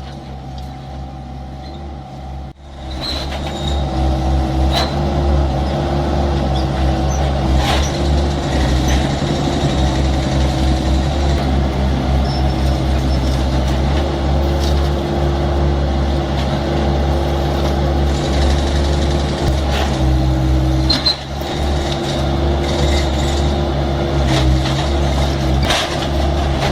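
Heavy machine's diesel engine running steadily, with a few sharp knocks and clanks. The sound breaks off briefly about two and a half seconds in and comes back louder.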